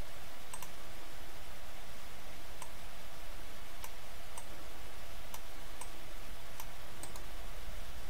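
Computer mouse clicks, short and sharp, about ten of them spaced a second or so apart, some in quick pairs, over a steady faint hiss and low hum.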